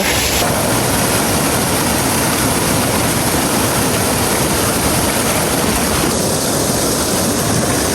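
Waterfall's steady rushing roar, a loud even noise with no break.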